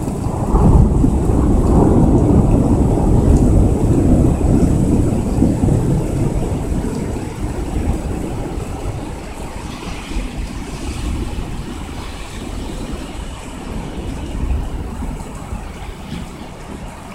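Long rolling thunder from a lightning strike about 500 metres away. It is loudest over the first few seconds and dies away gradually over several more, leaving the steady sound of rain.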